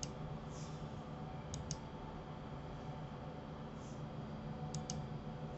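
Faint clicking of a computer mouse and keyboard being worked: one click at the start, a close pair about a second and a half in and another pair near the end, over a low steady hum.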